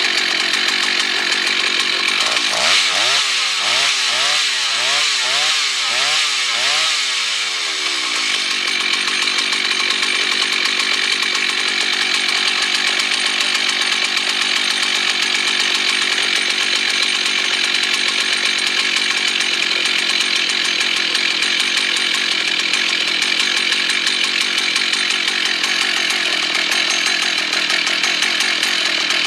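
Rebuilt vintage Husqvarna 1100 two-stroke chainsaw, fitted with an aftermarket carburettor made for a Husqvarna 395, running steadily at high revs. For a few seconds near the start its tone swoops up and down repeatedly, then it settles back to an even drone.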